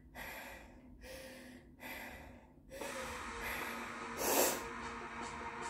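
A woman breathing hard, winded from push-ups and burpees: deep breaths about one a second, then quicker, denser breathing with one loud burst about three-quarters through.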